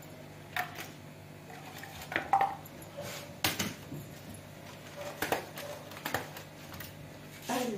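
Kitchen dishes and utensils clinking and knocking as food is packed into containers: about a dozen short, irregular clatters over a faint steady hum.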